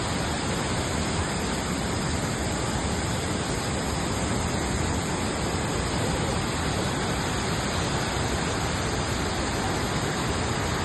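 Large waterfall pouring in a steady, unbroken rush of falling water.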